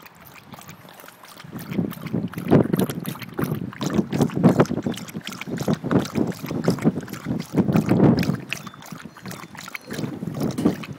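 A dog lapping water with her tongue, a fast, unbroken run of wet laps and splashes that gets louder about a second and a half in.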